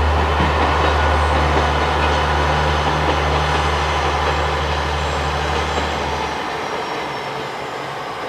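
JR Kyushu KiHa 40-series diesel railcar running, its diesel engine giving a steady low drone that stops about six seconds in, leaving the slowly fading noise of the train on the rails.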